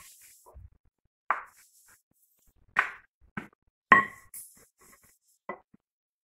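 Wooden rolling pin working dough on a hard tiled surface, making about five separate knocks and taps, the loudest about four seconds in with a short ring.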